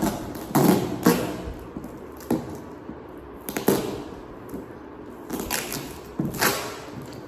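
Packaging being handled during an unboxing: irregular sharp taps and crinkles, about six of them.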